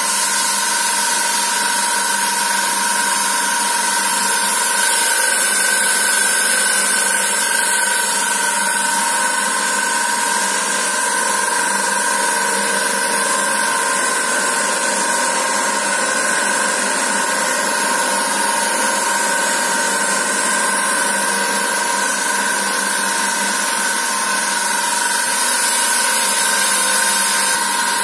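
Thread rolling machine running, its two dies rolling thread onto a long steel rod: a steady mechanical hiss with a constant whine.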